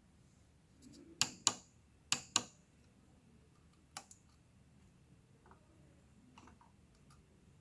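Sharp clicks of keys or buttons being pressed: two quick pairs about a second apart, then a single fainter click about four seconds in.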